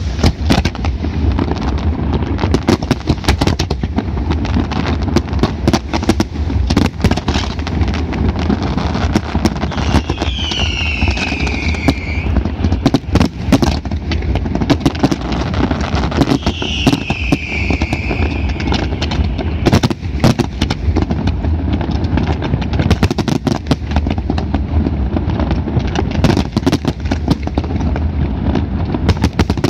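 Fireworks display: a dense, continuous barrage of bangs and crackles over a steady low rumble, with two whistles falling in pitch at about ten and seventeen seconds in.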